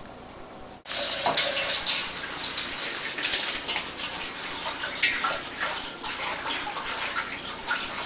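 Water running and splashing into a vessel, starting suddenly about a second in.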